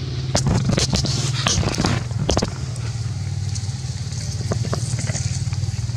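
An engine running steadily, a low even hum, with a stretch of dry crackling and rustling clicks over the first two and a half seconds that thins out after that.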